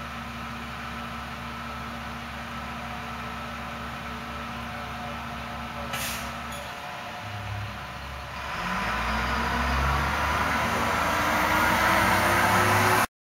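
Freightliner recycling truck's diesel engine idling steadily, with a short sharp air-brake hiss about six seconds in. From about eight seconds the engine revs up with a rising pitch and grows louder as the truck pulls away, until the sound cuts off suddenly.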